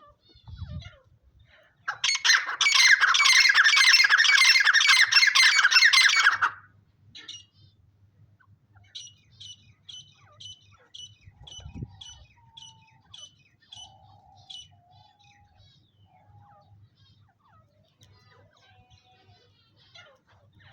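Teetar partridges calling: a loud, dense burst of calls lasting about four seconds, then a run of short, high notes at about two a second.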